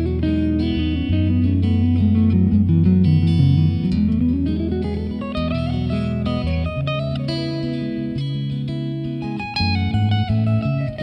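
Background music led by guitar over a bass line, with a sliding run of notes about four seconds in.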